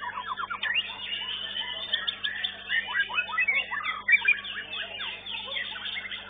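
Caged songbirds singing: dense, overlapping runs of quick whistles and chirps, busiest around the middle.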